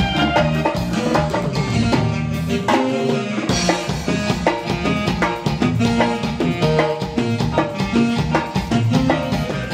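Live band playing upbeat Latin dance music, with keyboards over a steady beat. The bass drops out briefly about three seconds in.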